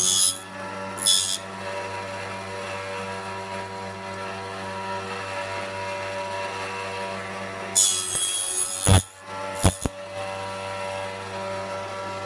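Small benchtop table saw running steadily, its blade cutting angled notches into thin kumiko strips on a sled in short bursts: at the start, about a second in, and again about eight seconds in. A few sharp knocks follow near nine to ten seconds.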